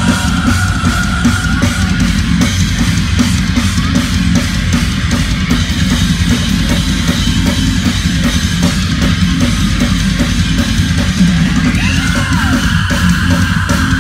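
A heavy metal band playing live at full volume, with fast, steady drumming under distorted guitars and bass, heard from within the crowd.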